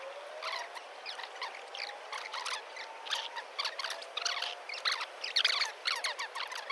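Small birds chirping: a dense run of short, high chirps and quick downward-sliding notes, busier toward the end.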